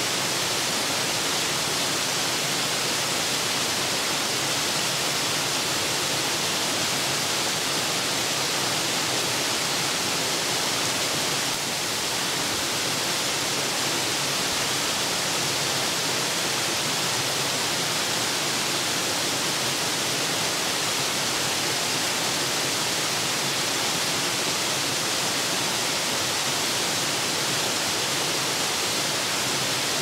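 Waterfall pouring steadily into a rock pool: an even, unbroken rush of water.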